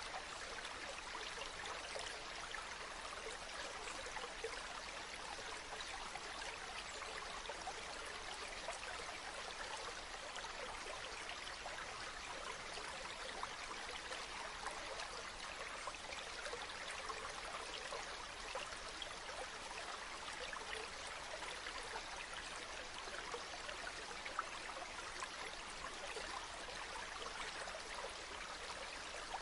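Water flowing steadily in a stream: an even, constant rushing with fine small splashes throughout.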